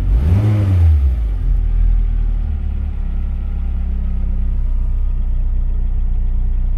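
Volvo 460 Turbo's turbocharged four-cylinder engine, heard from inside the cabin, surging up and back down in the first second and then settling into a steady idle. The owner suspects a vacuum leak is making the idle erratic.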